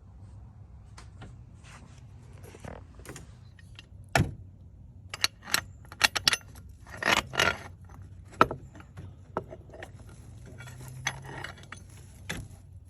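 Metal tools clinking and jangling: a run of sharp clanks and rattles, loudest and most crowded through the middle.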